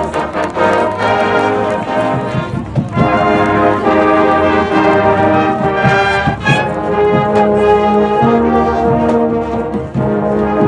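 Marching band playing: a brass section on sustained, chord-based lines, punctuated by drum hits.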